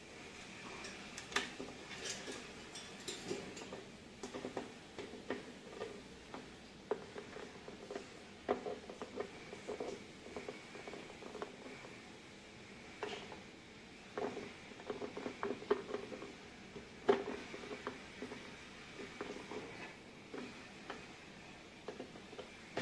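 Irregular light taps and clicks, a few a second, with louder knocks about a second and a half in, near thirteen seconds and near seventeen seconds.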